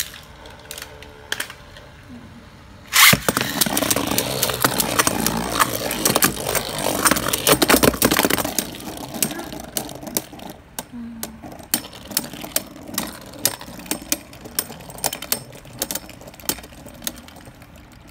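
Beyblade tops, Mirage Fafnir and Brave Valkyrie, battling in a plastic stadium: about three seconds in a second top lands with a sharp crack, then the two spin against each other with a steady whirr and rapid clicking clashes. The clashes thin out to scattered separate clicks as the tops slow down.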